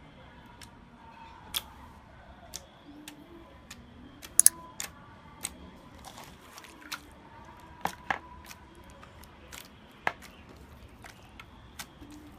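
Slime being pressed and pulled by hand, giving irregular sharp clicks and pops, the loudest pair about four and a half seconds in. Faint music plays underneath.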